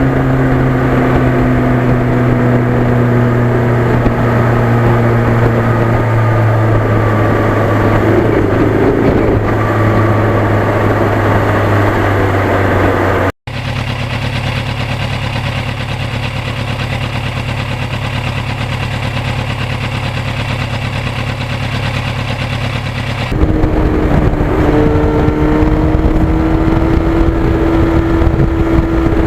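1991 Yamaha FZR1000's inline-four engine running at a steady cruise while riding. The sound breaks off briefly about 13 seconds in and changes abruptly in pitch and level there and again about 23 seconds in.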